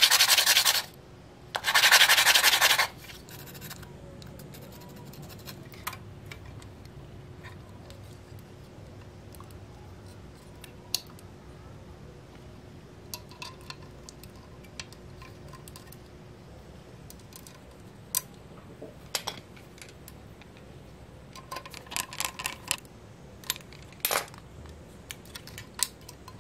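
Two rasping strokes of sandpaper on a small part, about a second each, at the start. Then light scattered clicks and taps as a 1/24 diecast car body shell is handled, bunched together near the end.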